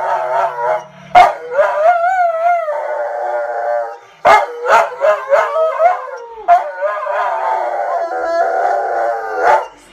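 A dog howling in long, wavering howls, along with a singer on the television, broken by a few short, sharp, loud cries.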